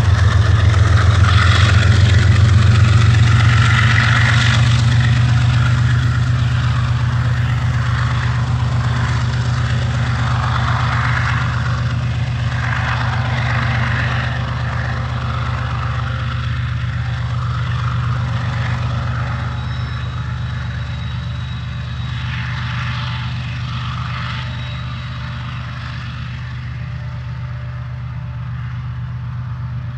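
GE-built TE33A diesel locomotive engines running with a steady low drone, along with the rumble of a freight train's wheels on the rails. The sound fades slowly as the train moves away.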